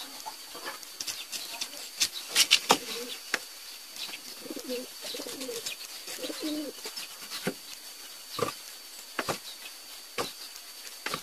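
Kitchen knife cutting through a pineapple and knocking on the wooden chopping board: sharp knocks, a quick run of them about two to three seconds in and single ones near the end. Several soft coos of a dove sound around the middle.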